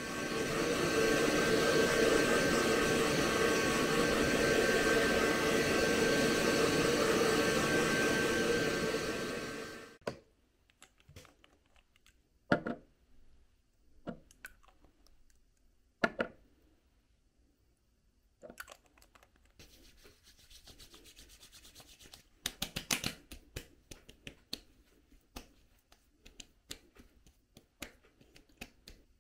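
Handheld hair dryer blowing steadily for about ten seconds, then switched off. After it, scattered small clicks and taps from a glass dropper bottle and its cap, and hands rubbing and patting skincare onto skin.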